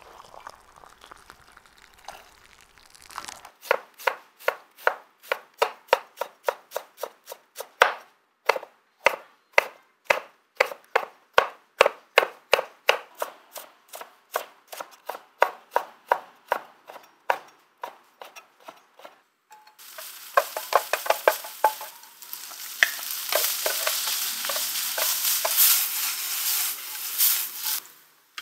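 Kitchen knife chopping vegetables on a wooden cutting board, a steady run of sharp chops about three a second. About twenty seconds in, the chopping stops and vegetables sizzle as they are stir-fried in a nonstick pan with a wooden spatula.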